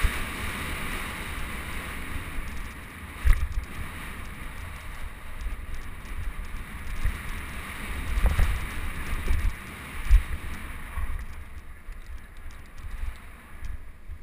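Mountain bike descending a dirt singletrack at speed, filmed by a bike-mounted action camera: a steady rush of wind on the microphone and tyre noise, with the bike knocking over bumps. The sharpest knocks come about three, eight and ten seconds in.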